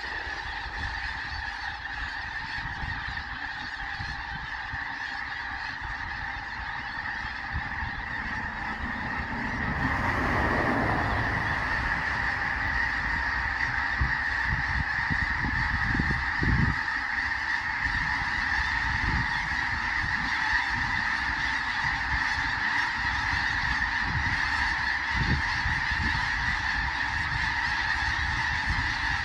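A flock of several thousand geese honking all at once, a dense unbroken chorus of overlapping calls that grows louder about ten seconds in.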